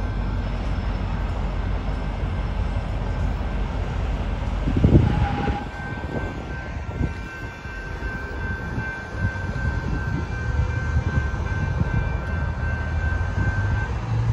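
Freight train rumbling steadily as it moves away, with a brief loud jolt about five seconds in. After that, road traffic passes over the grade crossing while a thin steady high tone carries on.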